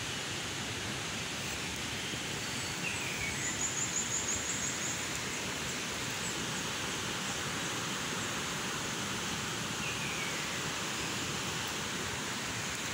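Forest ambience: a steady rushing hiss with a few bird calls over it, a short falling whistle about three seconds in, then a quick high trill, and another falling whistle about ten seconds in.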